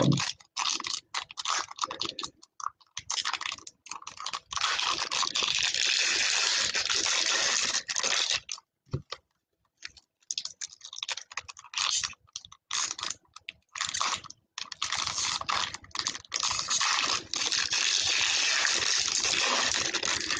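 Foil trading-card pack wrappers crinkling and tearing as packs are opened by hand. The crackle comes in several-second stretches and short bursts, with a brief pause near the middle.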